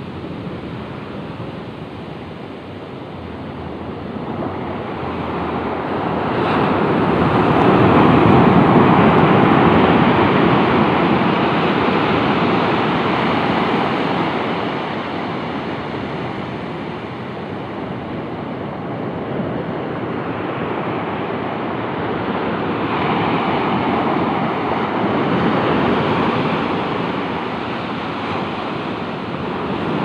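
Ocean surf breaking on a sandy beach: a continuous wash of waves that swells twice, loudest about nine seconds in and again more gently around twenty-five seconds, then ebbs.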